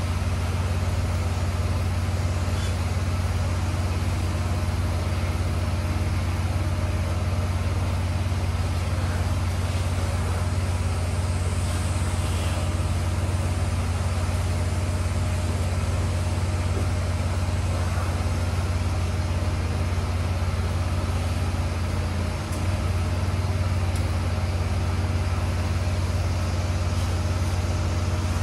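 Gas-engine pressure washer rig running steadily, a constant low engine hum.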